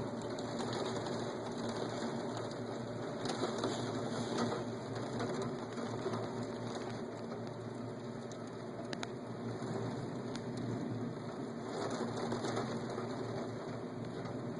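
Rain pattering steadily during a thunderstorm, heard from inside a room, swelling briefly a few times, with a low steady hum beneath.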